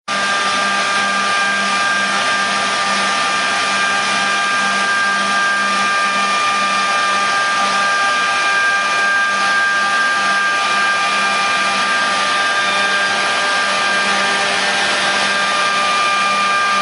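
Workshop machinery running steadily: a continuous motor whir with several steady whining tones, cut off suddenly at the very end.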